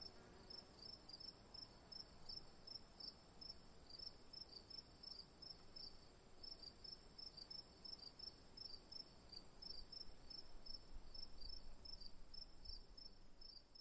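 Faint chirping of field insects: short high chirps, about four a second, in runs with brief pauses, over a thin steady high tone.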